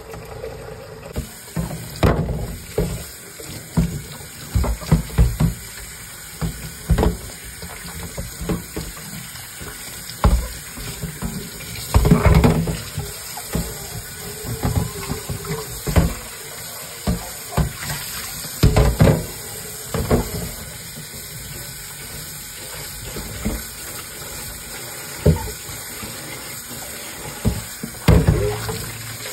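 Kitchen tap running into a stainless steel sink while an air fryer basket is scrubbed and rinsed by hand. Irregular knocks and bumps sound as the basket is handled against the sink, the loudest about twelve seconds in and again near nineteen seconds.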